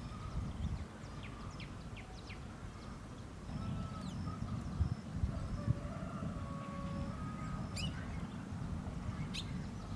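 Short, high, falling bird chirps, a few in a row early on and again twice near the end, with faint flat calls in the middle, over a steady low outdoor rumble.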